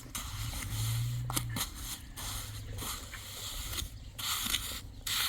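Gritty, repeated scraping and crunching of shovels working through wet concrete mix, over a low steady hum.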